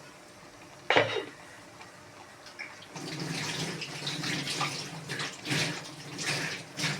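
A sharp clank about a second in, then water running or being poured steadily, swelling several times.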